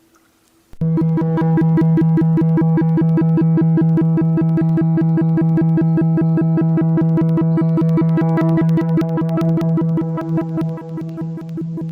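A loud, sustained low drone with a rapid, even pulsing flutter, starting suddenly about a second in and wavering near the end.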